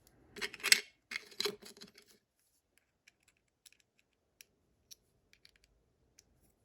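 Reassembled Miwa magnetic cam lock being handled and turned: two short bursts of metallic scraping and clicking in the first two seconds, then faint scattered ticks.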